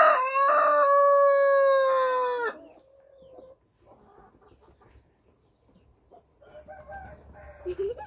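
A rooster crowing: a few short notes, then one long held note that sinks slightly and breaks off about two and a half seconds in. A brief, much fainter call comes near the end.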